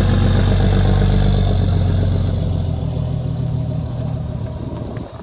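A large vehicle's engine running with a steady low hum, loud at first, then fading over the next few seconds and dropping away sharply near the end.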